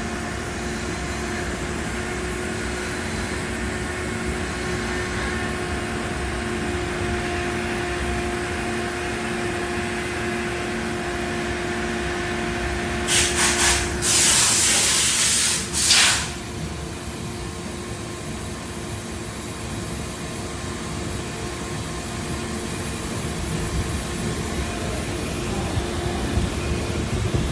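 CNC machining centre running a deep drilling cycle with a 20 mm drill at slow spindle speed and feed, a steady mechanical hum with a faint pulsing tone. About halfway through there are three short hisses and then a loud hiss lasting about two seconds.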